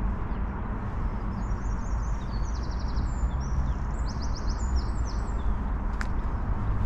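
Steady low city rumble, with small birds singing quick, high trills for a few seconds and a single sharp click near the end.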